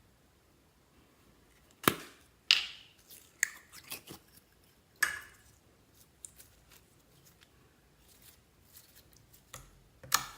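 Slime being played with by hand: a series of sharp, wet clicks and pops, several close together in the first half and one more near the end.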